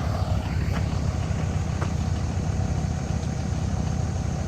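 A vehicle engine running steadily, a low pulsing rumble.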